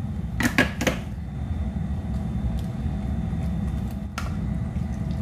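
Steel kitchen utensils knocking: three sharp clacks about half a second in as the mixer jar and a steel container are handled, then a single knock about four seconds in as the jar is tapped against the rim of a non-stick kadai to shake out coconut paste. A steady low hum runs underneath throughout.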